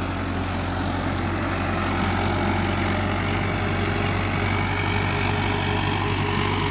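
Mahindra Arjun 555 DI tractor's diesel engine running steadily under load as it pulls a three-bottom plough.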